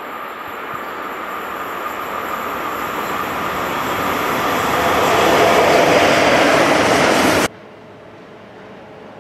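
SBB Re 4/4 electric locomotive hauling a freight train towards and past the listener, the rail and running noise growing steadily louder. It cuts off suddenly about seven and a half seconds in, leaving a much quieter steady rumble.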